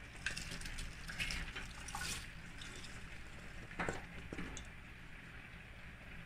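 Chopped cabbage, carrots and green beans tipped from a bowl into a pot of curry: rustling and soft wet splashes, with a few sharper clatters about two and four seconds in, over a low steady hum.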